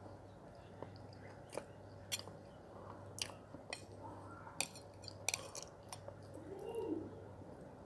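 Close-up mouth sounds of a person chewing a soft, wet paste of brown clay mixed with water, with scattered sharp wet clicks and no crunch. A short hum comes near the end.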